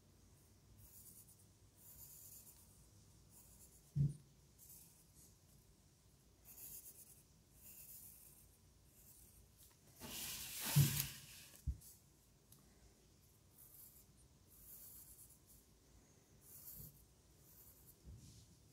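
Pencil scratching on notebook paper in short, intermittent strokes as a section of the drawing is filled in. A soft knock comes about four seconds in, and a louder paper rustle with a thump and a click near the middle, as the notebook is shifted.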